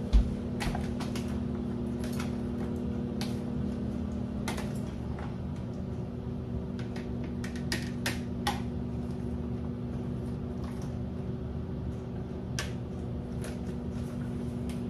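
Scattered light clicks and taps of a metal spoon and berries being set onto plastic plates, over a steady low hum.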